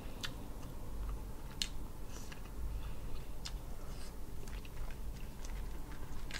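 Close-miked eating: chewing, with scattered small clicks and crackles as cooked shellfish shell is picked apart by hand.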